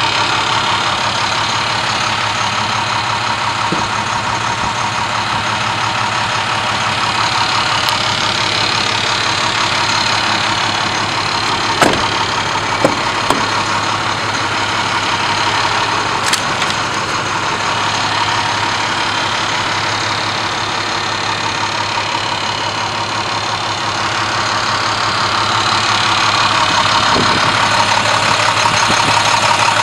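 International 4300 ambulance's diesel engine idling steadily. A few sharp clicks about twelve and sixteen seconds in come from a body door being handled.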